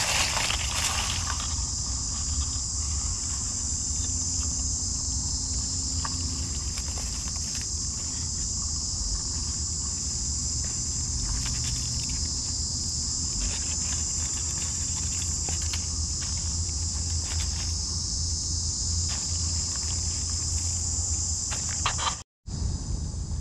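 A steady, high-pitched insect drone, with light crackling of dry fallen leaves as hands search the leaf litter. The sound drops out for a moment near the end.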